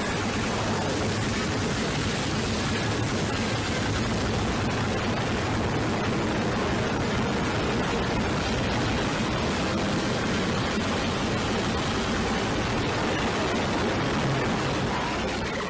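Harsh, distorted noise sound effect: a steady wall of static-like noise with faint tones buried in it, beginning to fade out at the very end.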